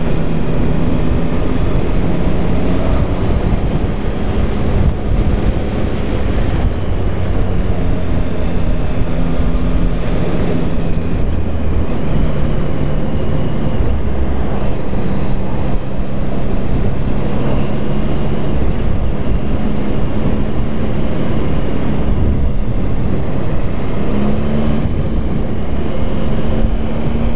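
Triumph Tiger 1050's three-cylinder engine running under way on a mountain road, mixed with steady wind noise on the microphone; the engine's pitch steps up or down a few times as the throttle and gears change.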